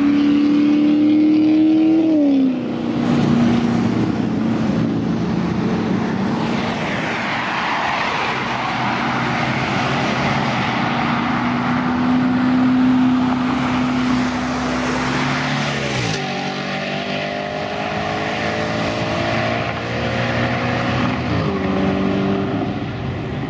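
A performance car's engine held at high revs and pulling hard, its pitch dropping sharply at gear changes about two seconds in, near two-thirds of the way through and again near the end, and climbing between shifts.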